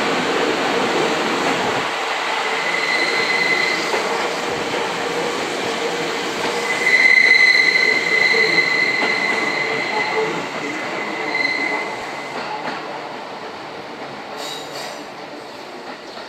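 Seibu 10000 series Red Arrow limited express train rolling past, its wheels squealing in a high, steady tone twice, the longer and louder squeal about seven seconds in. The running noise then fades as the train moves away.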